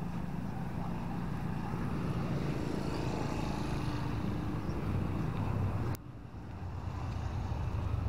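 Street ambience of a beachfront road: a steady low rumble of passing traffic with engine hum. It drops abruptly about six seconds in.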